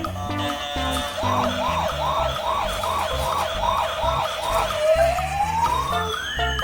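Toy ambulance's electronic siren: a quick repeating rising chirp, about three a second, starting about a second in, then switching near the end to one long slow rising wail. Background music plays underneath.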